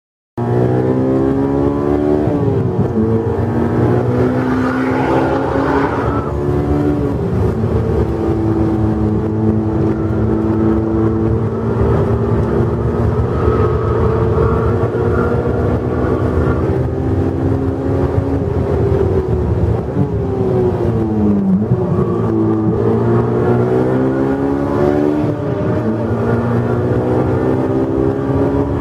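Honda S2000's four-cylinder VTEC engine with a JS Racing aftermarket exhaust, heard from inside the cabin while driven hard on track. The engine pitch climbs through the revs with a drop at a gear change near three seconds in, holds high for a long stretch, falls around twenty seconds in as the car slows, then climbs again under acceleration.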